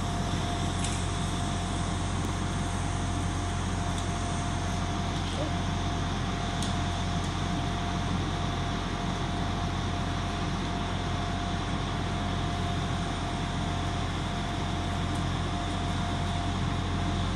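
Transport for Wales Class 175 diesel multiple unit idling at the platform: a steady low diesel hum with a constant thin tone over it.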